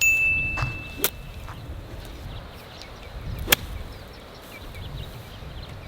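A golf club strikes the ball with a sharp click, and a second, louder click comes a couple of seconds later, over low wind rumble on the microphone. A steady high beep sounds for about a second at the start.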